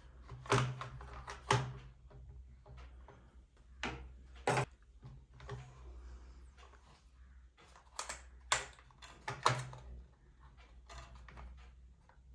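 Scattered sharp clicks and knocks of hard plastic objects being handled, typical of a toy RC car and its packaging being handled, over a steady low hum.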